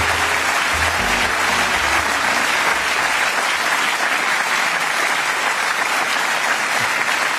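Studio audience applauding, with music playing underneath for the first two seconds or so before it stops.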